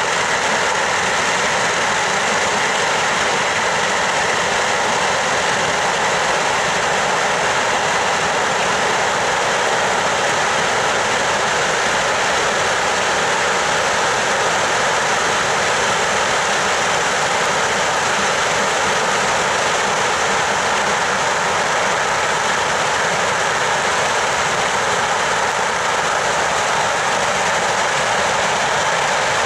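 Massed firecrackers and ground fireworks going off in one dense, unbroken crackle, the bangs so close together that they merge into a steady loud noise.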